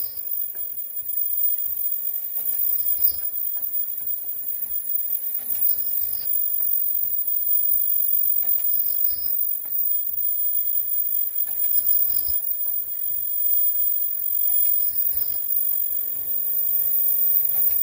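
Automatic face-mask making machine running in its cycle: a short high chirp and light clunks repeat about every three seconds over a steady high whine.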